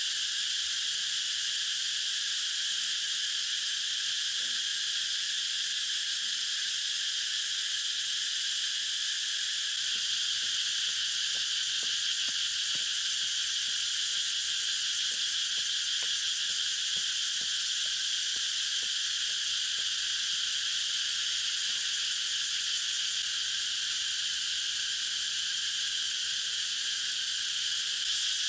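A steady, dense chorus of insects, shrill and high-pitched, with faint scattered knocks from about ten seconds in.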